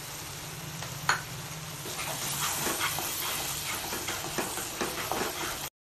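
Thick tomato-onion masala, thinned with a little water, sizzling in a kadai, with one sharp knock about a second in. From about two seconds in a wooden spatula stirs and scrapes it around the pan in quick strokes, until the sound cuts off suddenly near the end.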